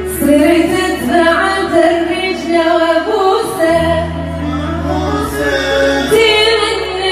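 A woman singing an Arabic bridal song, long held and ornamented lines, over a sustained low accompaniment that changes pitch about halfway through.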